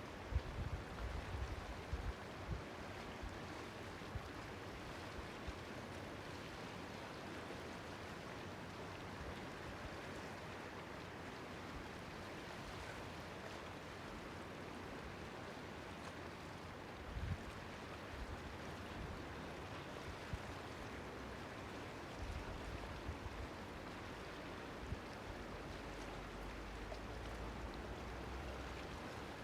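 Sea water washing steadily at a small harbour, an even hiss of waves, with a few short low rumbles of wind on the microphone at the start, a little past the middle and near the end.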